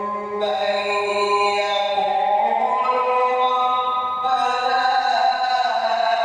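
A man reciting the Quran in the melodic tajwid style, drawing out long held notes that step up and down in pitch.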